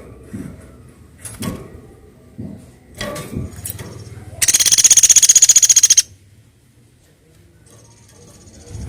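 Woodpecker giving a loud, fast rattling call that lasts about a second and a half, starting about halfway through. Scattered knocks and clicks come before it.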